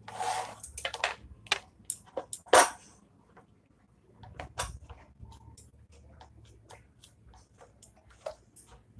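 Hand pressing and patting a lentil paste flat on a ceramic plate: soft dabs and small clicks against the plate, with a few louder ones in the first three seconds.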